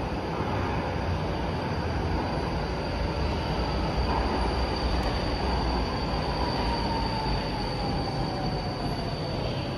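Two-car Incheon Line 2 light-metro train pulling into the station, heard through platform screen doors: a steady rail rumble, with a thin whine about halfway through that falls in pitch as the train slows.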